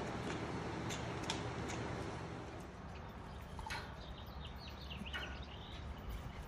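A steady noise with a few short sharp clicks. About two and a half seconds in it drops quieter, and small birds chirp several times.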